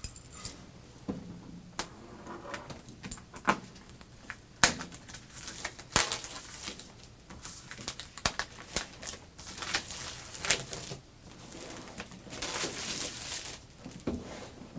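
A laptop's retail packaging being unboxed by hand: rustling and crinkling of wrapping, with many sharp clicks and taps as the box and its contents are handled.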